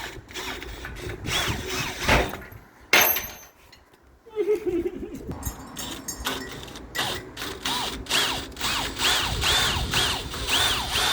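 Tools clicking and rattling, then a cordless drill run in short repeated bursts, its pitch rising and falling with each squeeze of the trigger, from about seven seconds in.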